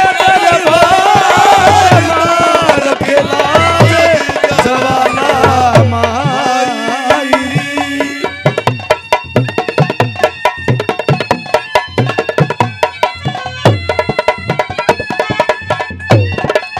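Haryanvi ragni folk song played live: a singer's voice over hand-drum strokes and held instrumental notes. About six seconds in the voice settles on a long held note, and about eight seconds in the singing stops while the drum keeps a steady, quick beat under sustained accompaniment.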